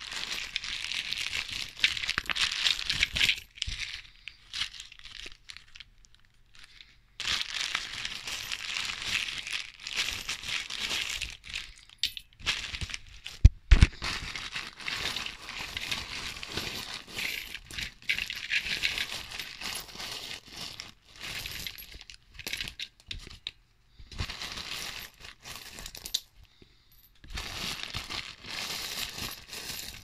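Rustling and crinkling of fabric handled close to the microphone, in bursts of a few seconds with short pauses, and one sharp knock about halfway through.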